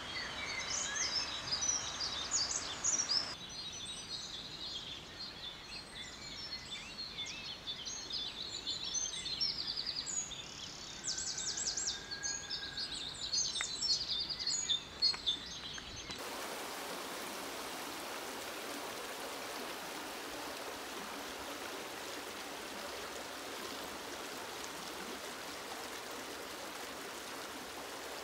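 Songbirds singing, many short chirps and trills overlapping. About sixteen seconds in it cuts to a shallow stream running steadily over stones.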